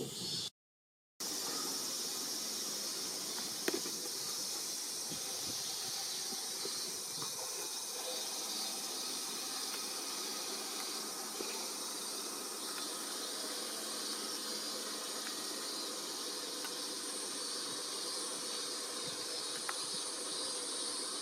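Steady high-pitched buzzing of a chorus of summer cicadas. It drops out for under a second near the start, then runs on unchanged.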